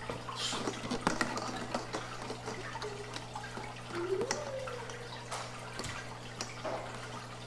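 Aquarium water bubbling and trickling over a steady low hum, with scattered clicks and knocks from the plastic gravel-vac tube and hose being handled and fitted together.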